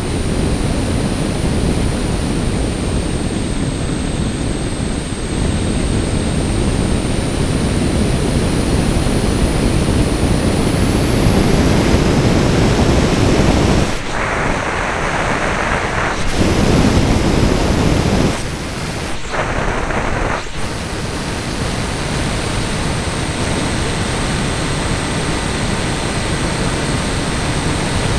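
Airflow rushing over the microphone of a radio-controlled model aircraft's onboard camera in flight, over the running drone of its motor and propeller, with a thin high whine on top. The low rumble drops away briefly about 14 seconds in and again about 18 seconds in.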